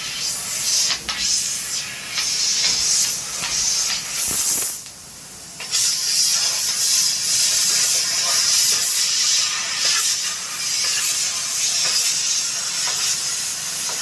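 CNC laser cutter hissing steadily as assist gas blows through the cutting nozzle during a cut. The hiss drops off briefly about five seconds in, then comes back.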